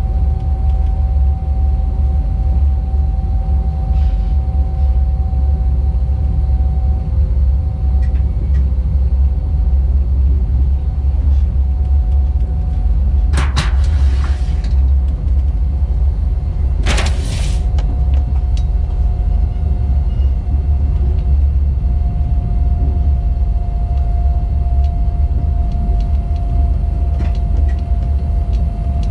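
Rd2 electric locomotive running with a freight train, a loud steady low rumble with a steady whine above it. Two brief noisy bursts break in around the middle, the second shorter.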